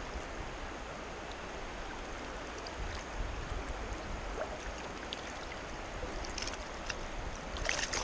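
Creek water running steadily, an even rushing hiss of a flowing trout stream, with a few short clicks near the end.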